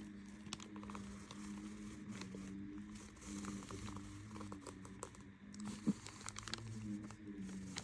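Faint scratching and small rustles of a pen drawing on paper, with a brief tap about six seconds in, over a steady low hum.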